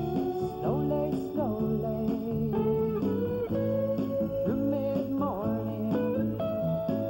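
Guitar music in a country-blues style, with notes that slide and bend up and down over a steady accompaniment.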